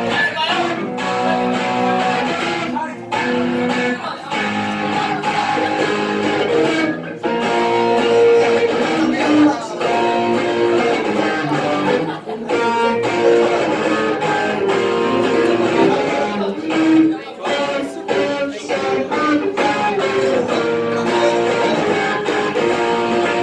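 Live band music led by strummed guitars, with percussion hits.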